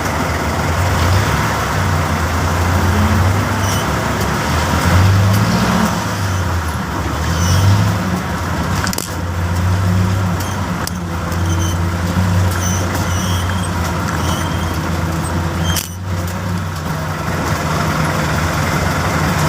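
A motor vehicle's engine running, a low hum that swells and eases repeatedly, under steady street noise.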